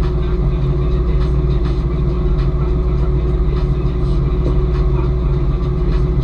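A deadrise workboat's engine running steadily, with a continuous low drone and a steady hum.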